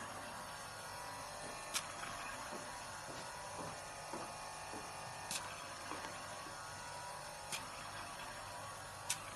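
Steady hum and hiss of a hydrafacial machine's pump running while its hose-fed handpiece works over the skin, with four short sharp clicks spread through.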